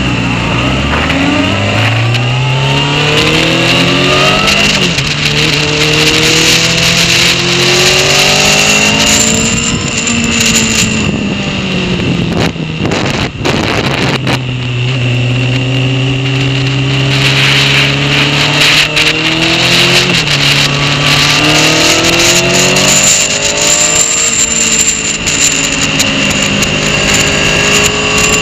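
Honda CBR sport bike engine heard from on board, accelerating hard through the gears. Each run climbs in pitch, then drops back at the upshift, with a steadier stretch in the middle. Wind rush sits under the engine.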